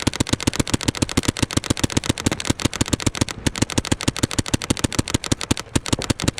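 Paintball markers firing in a rapid, even stream of shots, roughly ten a second, with one brief break about three and a half seconds in.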